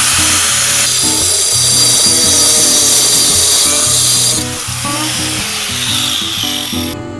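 A handheld power tool running against a metal mounting bracket, cutting it back, then stopping about four seconds in. Background music with a stepping bass line plays throughout.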